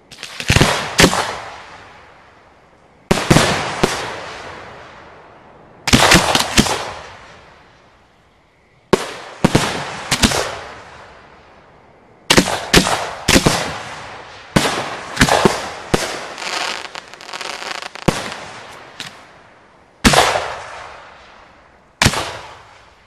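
Display fireworks being hand-fired at close range: a series of sharp booms, one cluster about every two to three seconds, each trailing away over a second or two. A run of rapid crackling comes about two-thirds of the way through.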